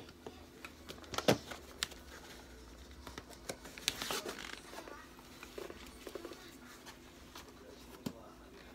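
Handling noise from a tweed-covered case and its fabric strap: several sharp knocks and clicks, the loudest about a second in, then the rustle of the strap being wrapped around the case about four seconds in, and another light knock near the end.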